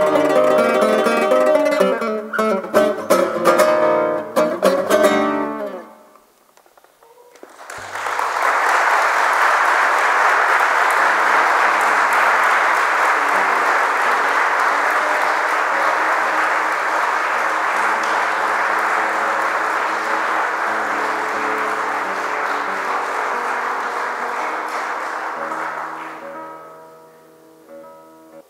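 Nylon-string classical guitar played solo, closing a piece with a few struck chords about five seconds in. After a short silence the audience applauds steadily for about eighteen seconds, the applause dying away near the end as the guitar starts playing again.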